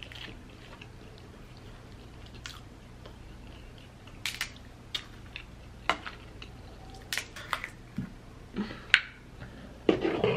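Close-miked eating of crab legs. After a few quiet seconds come scattered sharp clicks and snaps of shell and a crab fork as the meat is picked out, then chewing and wet mouth sounds near the end.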